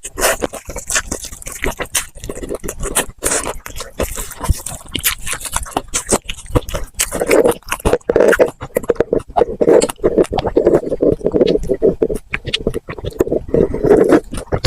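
Close-miked eating of crispy fried chicken: a dense run of sharp, crisp crunches with chewing and wet mouth sounds, growing thicker and lower in the second half.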